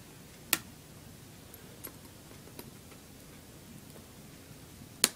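Sharp plastic clicks from a flathead screwdriver working the retaining clips along the top edge of an Acer laptop keyboard: two loud clicks about four and a half seconds apart, with a couple of fainter ticks between.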